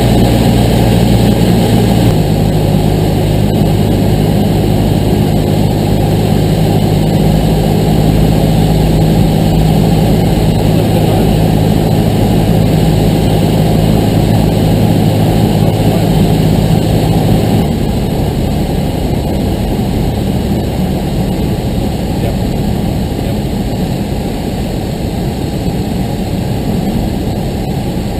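Cessna 172's piston engine and propeller running steadily on the approach, with air rushing past. The engine note steps down about two seconds in as power is reduced, and about eighteen seconds in the engine tone drops away under the rush of air as the throttle comes back for the landing.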